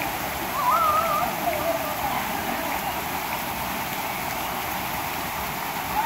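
Steady hiss and patter of water streaming and dripping down from a rock overhang into a pool below. About a second in, a brief high voice sounds over it.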